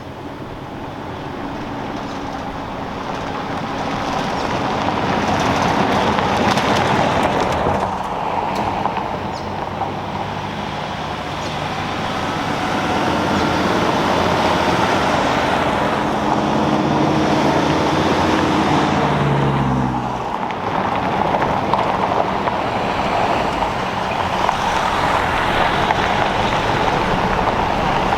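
Vehicle engine and road noise while driving, fading in over the first few seconds. The engine note drops sharply about two-thirds of the way through.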